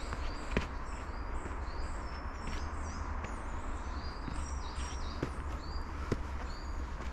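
Small birds chirping, many short high notes one after another, over a low steady rumble, with a few sharp footsteps.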